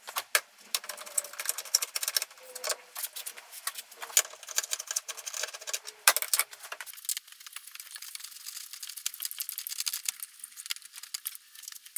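Rapid light clicking and rattling of hand work on the car: the two 10 mm bolts of the plastic power steering reservoir's bracket being backed out, then the plastic reservoir handled and lifted free. The sound grows lighter and thinner after about seven seconds.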